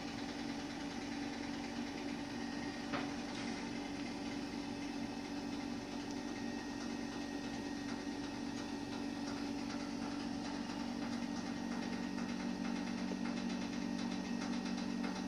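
A steady low mechanical hum, with one faint click about three seconds in.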